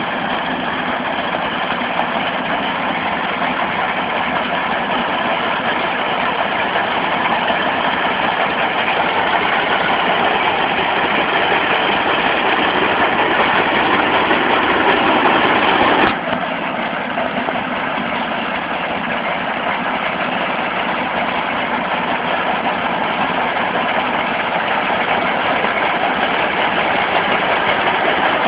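Futata HH-5 rice harvester's 12 hp diesel engine running steadily. The sound drops suddenly a little past halfway, then slowly grows louder again.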